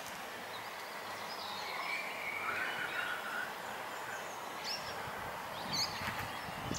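Outdoor town ambience: a steady background hiss with a few short, high chirps, with more chirps near the end.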